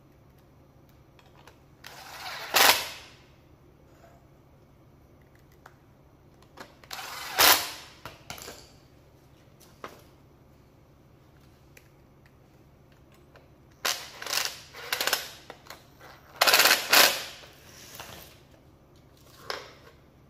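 Makita 12 V cordless impact driver driving screws into the tool housing in several short runs, each growing louder into rapid hammering and stopping abruptly as the screw seats, with small clicks of screws and parts being handled in between.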